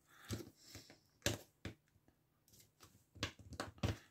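Sharp clicks and taps of a thin metal pry tool against the plastic case of a 32-LED sound-controlled lamp as the blade is worked into the seam to pop it open. A few single clicks come first, then a quick run of them near the end.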